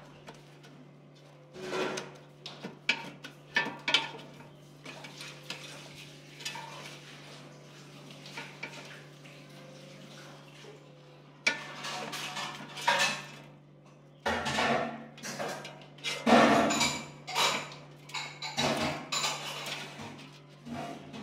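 Wooden chopsticks knocking and scraping against a non-stick air fryer basket as pieces of grilled pork are turned over, in irregular clatters that grow busier about halfway through, over a steady low hum.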